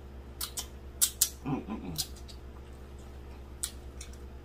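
Wet mouth smacks and finger-licking clicks from someone eating with their fingers, with a short hummed 'mmm' of enjoyment about a second and a half in.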